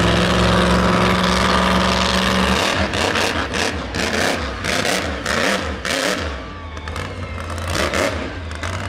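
Monster truck engine running loud and steady for about two and a half seconds, then breaking into an uneven run of short revs.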